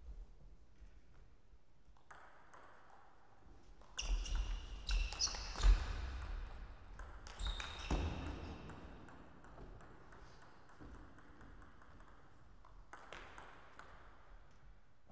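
Table tennis rally: a quick run of ball strikes on bats and table, with the clicks running from about four to eight seconds in.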